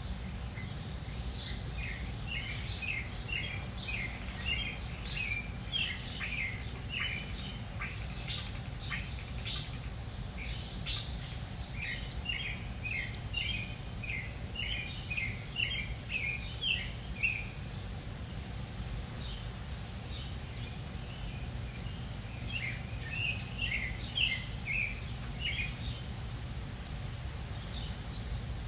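Backyard ambience: songbirds chirping in quick runs of short notes, pausing for a few seconds about two-thirds of the way in, over a steady low rumble.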